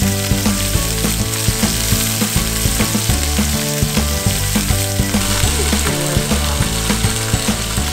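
Beef rib pieces sizzling in hot olive oil in a stainless pressure cooker as they sear, under background music with a steady beat.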